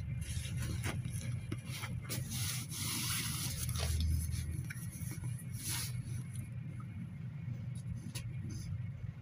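Cabin noise inside a GAZelle Next minibus moving slowly in traffic: a steady low engine and road rumble, with a swell a few seconds in. Scraping and rattling noises and scattered clicks come between about two and six seconds in.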